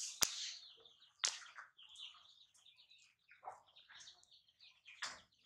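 Disposable diaper crinkling and rustling as it is unfastened and pulled off, with a sharp crackle about a quarter second in, another a second later and one near the end. High chirping calls run throughout.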